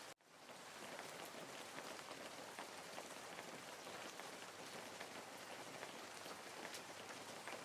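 Steady rain falling on a surface: a fine, even patter of many small drops, with a brief sharp cut-out just after the start.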